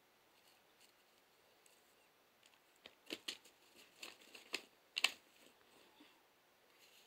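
A crinkly plastic chip bag of fried pork skins crackling as a cat pushes its head inside it, a short run of sharp crackles about three seconds in, loudest near the end of that run.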